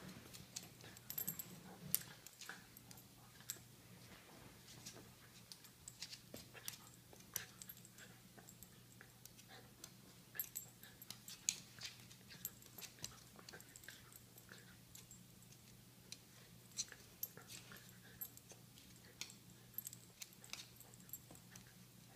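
A Chihuahua and a cat play-wrestling: scattered soft scuffles, clicks and mouthing sounds throughout, over a faint steady low hum.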